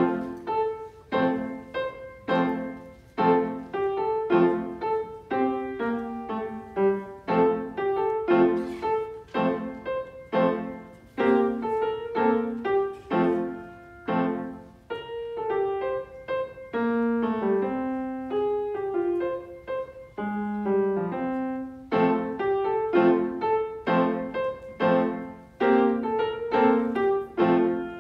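Grand piano played solo: a recital piece of chords struck in a steady, even rhythm, with a lower line moving beneath them.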